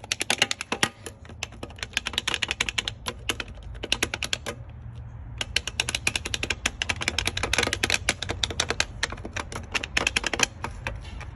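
Rapid, irregular plastic clicking from a toy remote-control car set being worked, several clicks a second, with a pause of about a second near the middle.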